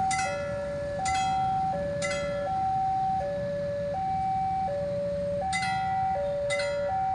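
Indonesian railway level-crossing warning alarm: an electronic two-tone signal alternating between a higher and a lower note, each held just under a second. Bell-like strikes ring about once a second over it, stopping for about three seconds mid-way, with a low traffic rumble beneath.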